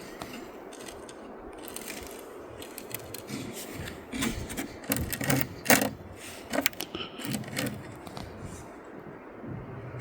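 Jacket zipper scraping and clicking against snow crusted on a van headlight: a run of small irregular clicks and scrapes starting about three seconds in. It is the faint noise that had been taken for mice moving inside the van's body panels.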